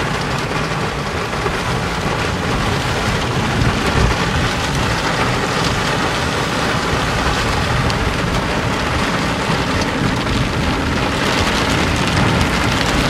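Heavy rain pelting the car's roof and windshield in a downpour, a dense steady hiss heard from inside the cabin.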